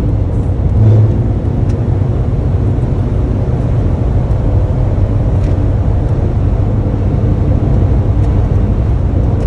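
Van driving at cruising speed on an open road, heard from inside the cabin: a steady low rumble of engine and tyre noise that swells briefly about a second in.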